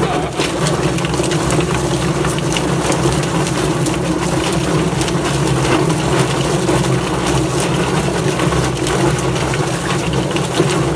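Drum-type chicken feather plucker running: a steady motor hum under a dense, irregular clatter of knocks and slaps as the spinning base throws the bird against the rubber plucking fingers.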